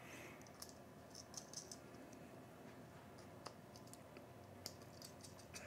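Near silence with a few faint, scattered clicks of small metal parts being handled on a compressor's terminal board.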